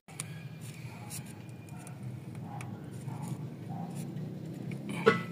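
Scattered light clicks and taps of small parts or tools being handled at a workbench, with one sharper click near the end, over a steady low hum.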